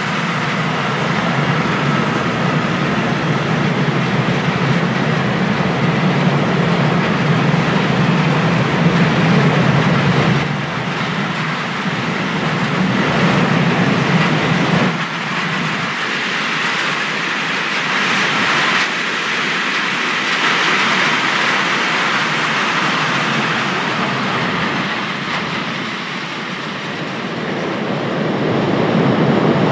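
Open freight wagons of a long train rolling past: a steady rumble of steel wheels on rail with clickety-clack.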